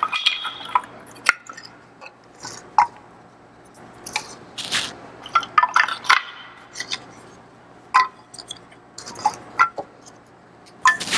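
Wooden kindling sticks clacking and knocking against one another as they are picked from a pile and stacked into a crib in a wood stove's firebox. There are a few rustles of the crumpled newspaper lining its floor.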